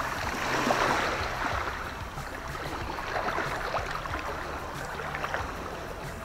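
Small waves washing up the sand at the shoreline and draining back, louder at first and easing to gentle lapping.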